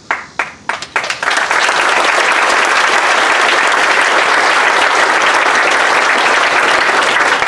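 Audience applauding: a few scattered claps in the first second swell into full, steady applause.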